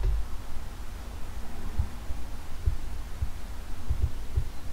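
Irregular low thumps over a low rumble: handling noise from a hand-held camera's microphone.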